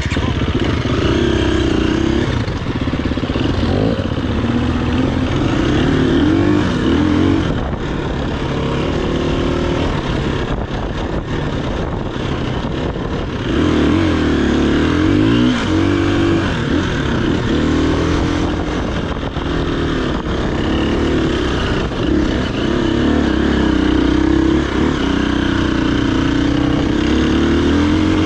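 Dirt bike engine running under load on a trail ride, its pitch rising and falling with the throttle as the rider works up and down through the revs.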